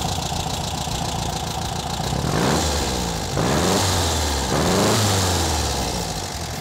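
Air-cooled VW Beetle flat-four engine, fitted with an SVDA vacuum-advance distributor with electronic ignition, idling steadily. About two seconds in, the throttle is blipped by hand at the carburetor three times, each rev rising and falling back, before the engine settles to idle again.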